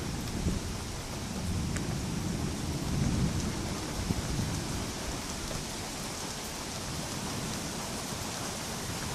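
Steady rain falling through a thunderstorm, with low rolling thunder that swells about three seconds in and dies away in the second half.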